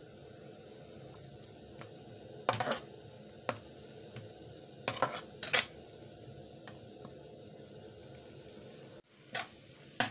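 Metal spatula scraping and clanking against a metal wok in a handful of sharp strokes as shredded cabbage and carrot with a green masala paste are stirred, over a faint steady sizzle.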